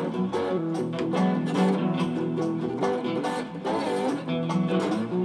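Blues number on acoustic guitar and slide guitar, plucked notes ringing on with some notes gliding in pitch under the slide.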